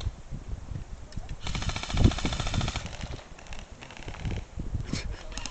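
Airsoft rifle firing a full-auto burst of rapid, evenly spaced clicks lasting a little over a second, starting about one and a half seconds in. Shorter bursts follow near the end.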